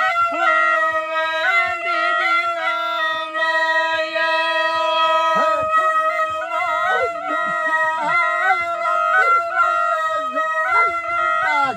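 Jori (alghoza), a pair of duct flutes blown together: one holds a steady low drone while the other plays a wavering, ornamented folk melody above it.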